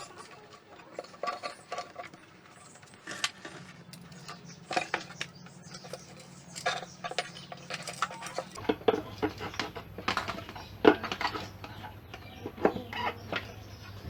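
Small metal tools and parts clinking and knocking irregularly, as when handled on a workbench. About two-thirds of the way through, a steady low hum and a faint high whine come in.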